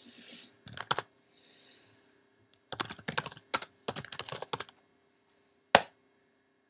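Typing on a computer keyboard: a couple of keystrokes about a second in, then a quick run of key presses, and one louder click near the end.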